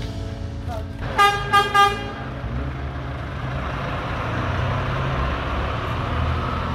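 Coach bus horn sounding three short toots, then the coach's engine running with a low rumble as the bus drives off, its noise growing louder.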